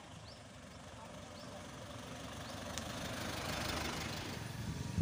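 A car driving past on the road, its engine and tyre noise building to a peak about three and a half seconds in and easing off slightly after.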